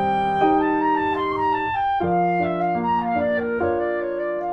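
Instrumental background music: slow, held notes over sustained chords, with a chord change about halfway through.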